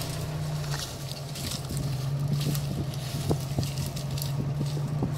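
Vehicle engine idling steadily, a low even hum, with scattered light crackles and clicks.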